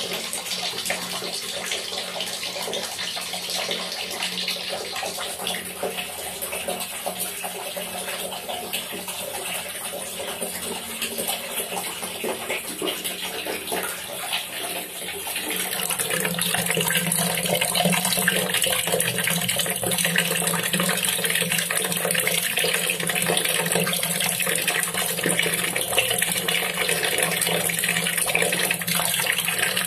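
Water running steadily into a tub already holding water, splashing on the surface; it gets louder about halfway through.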